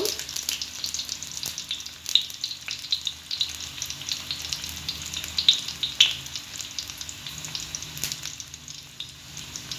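Chopped garlic frying in hot oil in a pan, a steady sizzle with frequent sharp crackles and pops: the garlic being sautéed until fragrant.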